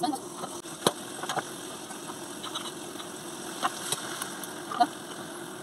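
Burger patties frying in a pan with a steady hum, and a few sharp clicks of metal tongs against the pan, the loudest about a second in.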